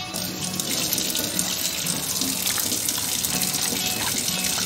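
A hand squishing and mixing raw chicken pieces with sauces in a plastic bowl to marinate them: a steady wet, squelching noise.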